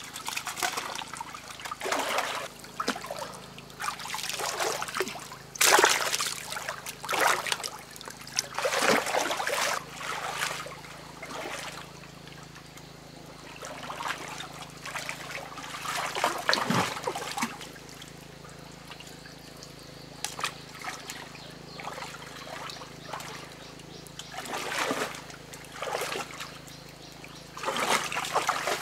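Shallow stream water splashing in irregular bursts as hands grope through it and legs wade, over a steady trickle of running water.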